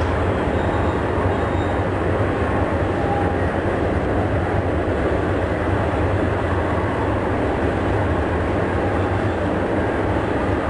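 Steady rolling noise of a train running on the rails, loud and unchanging, with most of its weight in the low end.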